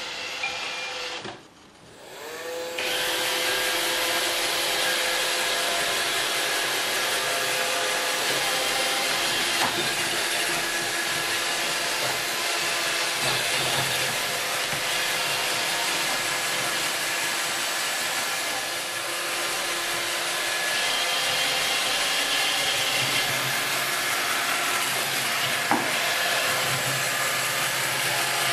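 iRobot Roomba 650 robot vacuum running. After a short quiet moment it starts up about two seconds in, then keeps up a steady whir with a held whine from its motors and brushes.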